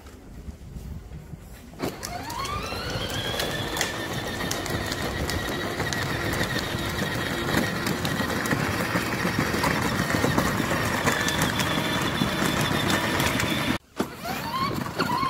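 Electric motor of a children's battery-powered ride-on quad whining up to speed about two seconds in, then holding a steady high whine, with scattered clicks and rattles from the moving toy. Near the end it breaks off sharply and spins up again.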